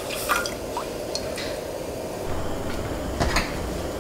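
Milk poured into a stainless steel saucepan, the stream thinning and ending in drips in the first moments, followed by a few light clinks and ticks from the pan.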